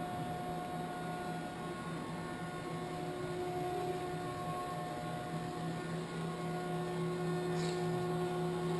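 Steady electrical hum over a faint hiss from a powered-up CNC vertical machining center standing idle.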